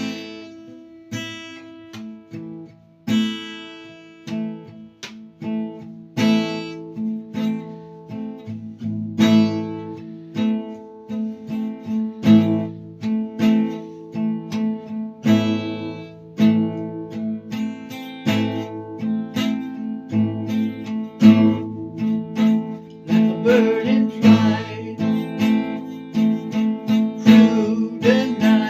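Acoustic guitar playing, notes picked and strummed in a steady repeating pattern that rings on between attacks.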